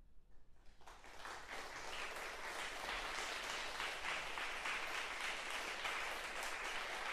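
A moment of quiet, then audience applause starts about a second in, builds up over the next second and holds steady.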